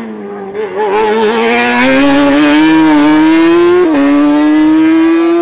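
Single-seater race car engine accelerating hard out of a bend, its pitch climbing as the revs rise. There is a quick upshift just under four seconds in, then the engine pulls up through the revs again.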